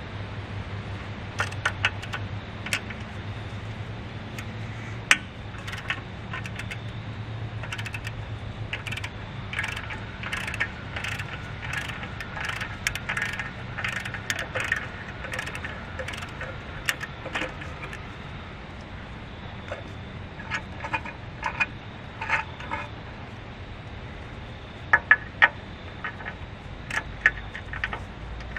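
Hand tools and small steel parts clinking and clicking at irregular intervals as a cap and grease fitting are worked loose on a compact track loader's track idler. A steady low hum runs underneath and fades about two-thirds of the way through.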